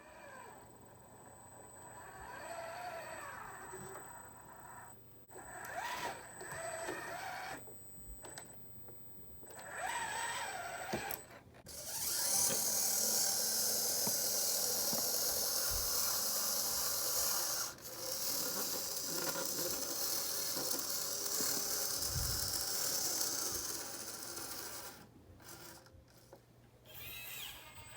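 Small electric motors and plastic gearboxes of radio-controlled model trucks and construction machines whining. The pitch rises and falls with the throttle, and a louder hissing run lasts from about twelve seconds in to about twenty-four seconds in.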